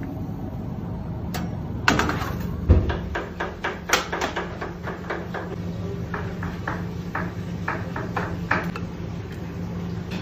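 Metal baking pan and oven being handled over a steady kitchen hum: a quick run of clicks and knocks, with a heavy thump a little under three seconds in as the oven door shuts, then lighter clinks of metal cookware later on.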